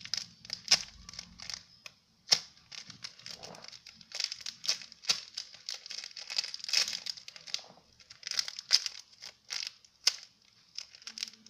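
Plastic crinkling in short, irregular bursts with small clicks as squishy toys are handled.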